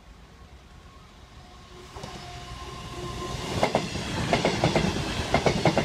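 A CrossCountry Class 221 Super Voyager diesel multiple unit approaches and passes close by, growing louder from about two seconds in. From about three and a half seconds in, its wheels click over the rail joints in quick pairs as the bogies go by.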